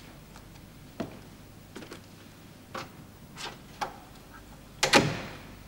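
A few separate footsteps on a hard floor, then a door opened and shut, with a loud bang about five seconds in.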